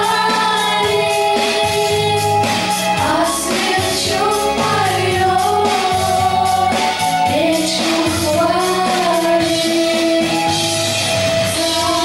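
Three girls singing a pop song together into microphones, with long held notes, over an instrumental accompaniment with a steady beat.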